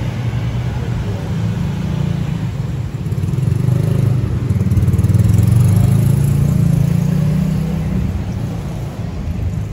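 Street traffic: the low rumble of motorcycles and cars running along the road close by, swelling about halfway through as a vehicle passes and then easing.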